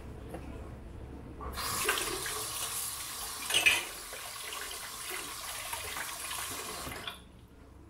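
Water running from a tap for about five and a half seconds, starting and stopping abruptly, with a brief louder splash a little past halfway.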